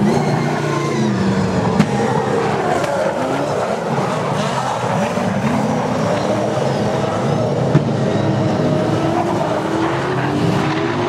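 Several saloon race car engines racing on a dirt speedway oval, their pitch rising and falling as the cars lift and accelerate through the turns. Two sharp clicks stand out, one near the start and one past the middle.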